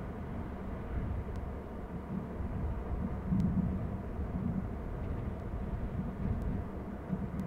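Steady low rumble of outdoor background noise, swelling irregularly, with a few faint ticks.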